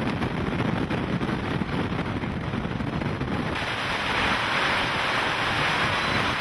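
Hurricane-force wind rumbling on the microphone with driving rain. About three and a half seconds in, the sound changes abruptly to a louder, brighter hiss of wind-blown rain and sea spray.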